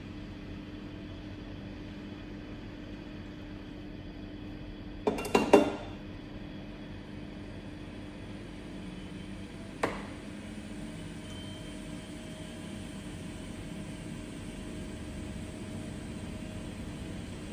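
A steady low hum with sharp hard taps: three in quick succession about five seconds in, and a single one near ten seconds.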